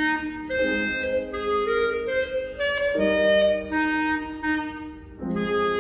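A clarinet playing a melody in held notes over a lower accompaniment, with a short break for breath about five seconds in.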